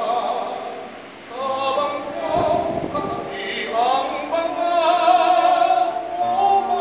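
Tenor singing a Filipino kundiman in classical, operatic style, with vibrato, to classical guitar accompaniment; he holds one long note about two-thirds of the way through.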